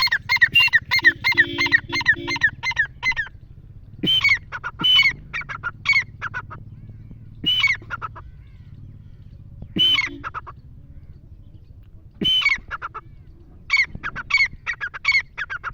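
Irani teetar (a partridge of the francolin kind) calling: a fast run of sharp, ringing notes, then short phrases of a few notes every two or three seconds, and another quick run near the end.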